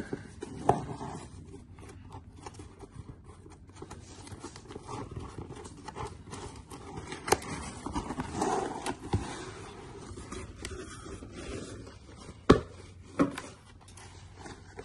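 A cardboard shipping box handled and opened by hand: flaps pulled open and folded back, with scraping and rustling of cardboard. Two sharp knocks come close together near the end.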